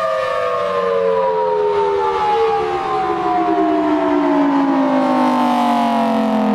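Federal Signal Thunderbolt 1003 dual-tone mechanical siren winding down: its steady chord breaks into a long, smooth falling pitch as the rotor slows at the end of the Alert signal.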